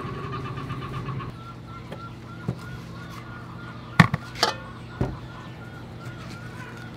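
Knife and metal spoon working a raw pumpkin on a wooden board: a few sharp knocks and scrapes, the loudest about four seconds in. Underneath, a steady low hum and short repeated high chirps.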